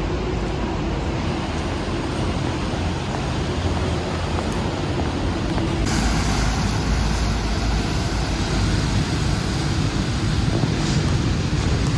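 Steady city traffic noise, a low rumble of vehicles. About six seconds in it suddenly turns brighter and hissier.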